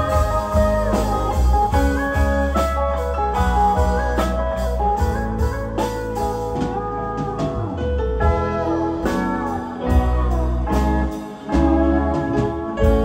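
Live band playing an instrumental passage: pedal steel guitar with gliding, bending notes over electric guitar, bass, drums and keyboard.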